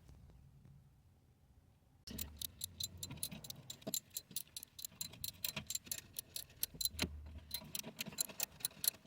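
Near silence, then from about two seconds in a ratchet wrench clicking in quick runs of sharp ticks, about six a second, as rusty exhaust manifold bolts are worked loose.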